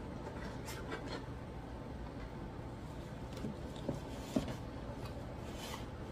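Quiet eating sounds: a plastic fork clicking and scraping as cheese-sauce-covered fries are taken and bitten, with soft chewing. Two sharper clicks come about four seconds in.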